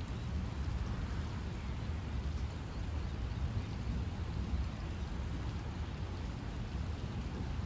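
Steady rain falling during a summer thunderstorm, with a low rumble underneath throughout.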